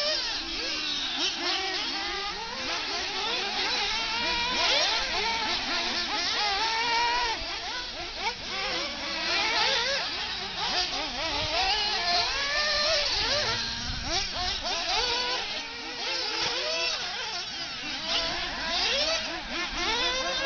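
RC buggies racing on a dirt track, several small engines revving up and down at once in overlapping high-pitched whines that rise and fall.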